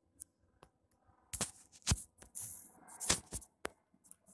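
Footsteps crunching on loose sand and gravel: a few faint clicks, then from about a third of the way in a run of sharp, irregular crunches.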